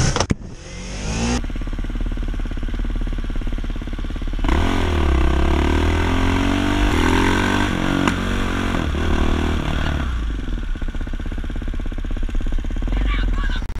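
Motorcycle engine running while riding on the road. From about four seconds in it revs and accelerates, its pitch rising and dropping several times with the gear changes, then it settles to steadier running.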